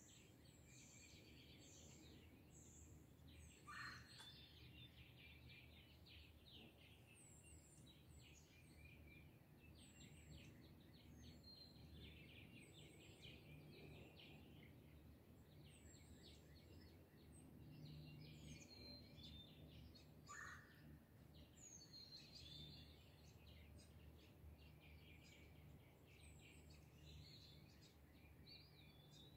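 Faint dawn chorus of many songbirds chirping and trilling over a low, steady rumble. A louder short falling call stands out about four seconds in and again about twenty seconds in.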